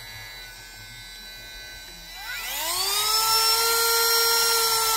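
A Milwaukee M12 cordless rotary tool spins up about two seconds in with a rising whine, then runs at a steady high speed, sharpening a chainsaw chain.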